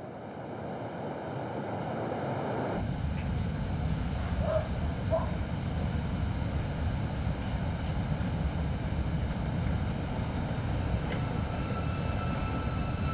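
A steady low rumble with no clear pitch. It fades in over the first three seconds and then holds, with two faint short tones about four and five seconds in.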